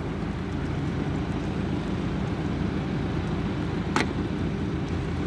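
Car engine running steadily with a low hum, and one sharp click about four seconds in.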